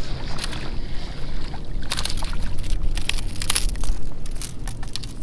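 Wind on the microphone over lapping water, then from about two seconds in an irregular run of splashes and clicks as a small hooked speckled trout thrashes at the surface and is lifted out of the water.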